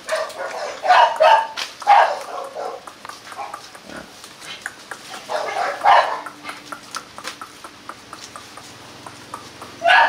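Rottweiler puppies barking and yapping in short bursts while they play at tug-of-war with a leaf.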